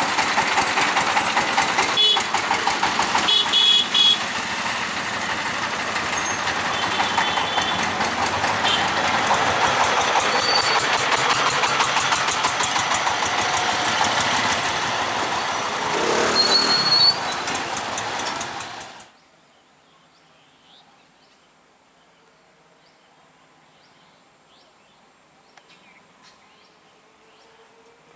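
A train passing close at speed, a loud, dense rush of running noise and rapid wheel clatter that cuts off abruptly about nineteen seconds in. The rest is quiet, with faint chirps.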